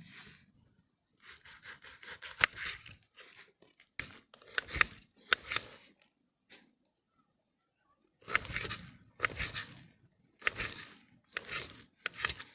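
Knife slicing through onion, a run of short crisp rasping cuts in clusters with pauses between them.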